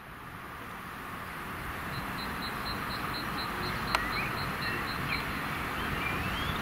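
Railway station ambience fading in: a steady rumble that grows louder, with a rapid run of high pips from about two seconds in and bird chirps later on. A single sharp click comes about four seconds in.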